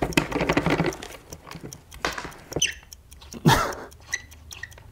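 Rusty longboard truck nuts and bolts squeaking and clicking as they are turned with a skate T-tool, with a short squeak falling in pitch a little after two and a half seconds in and a few brief squeaks near the end.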